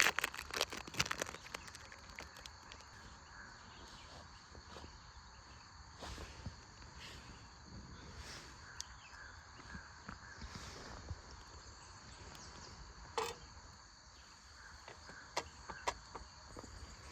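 Outdoor ambience of steady, high-pitched insect chirring, with scattered sharp clicks and light knocks from handling or footsteps; the loudest come in the first second and one about thirteen seconds in.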